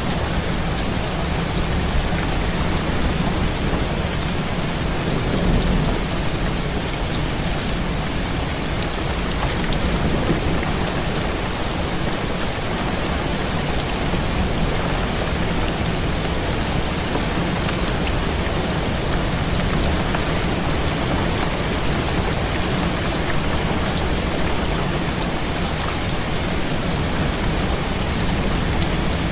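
Heavy rain beating steadily on a window pane, a dense even hiss, with a low rumble underneath that swells slightly about five and ten seconds in.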